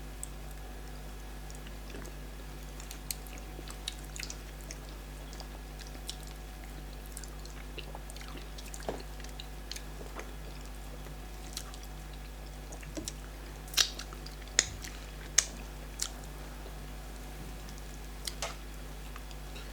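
Mouth sounds of eating starch fufu with bitter leaf soup: chewing with scattered wet clicks and smacks, a few louder ones in the second half, over a steady low hum.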